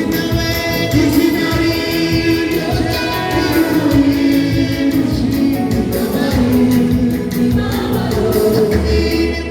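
A choir singing a gospel song with instrumental backing and a steady beat.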